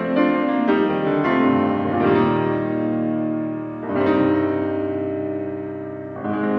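Yamaha grand piano played solo: slow chords struck every second or two, each left to ring and fade before the next.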